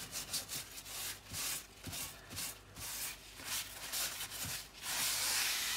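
Paper towel rubbed over the oiled surface of a Weber cast iron griddle, spreading the seasoning oil: short wiping strokes about two a second, running into one steadier rub near the end.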